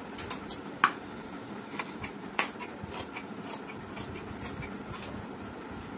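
Tailoring scissors snipping through folded fabric: a string of short, sharp clicks of the blades closing, with the strongest snips about a second in and again near two and a half seconds.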